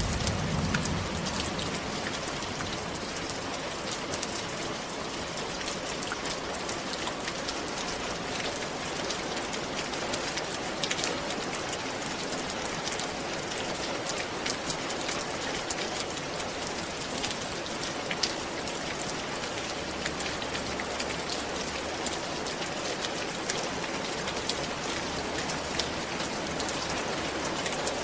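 Steady rain falling on a roof, with a continuous hiss and many separate drops ticking against it.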